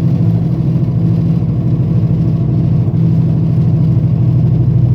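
Steady low droning grind from a 2009 Ford Focus on the move, the kind of noise that grows louder with speed; it sounds like a worn wheel hub bearing that will probably need replacing.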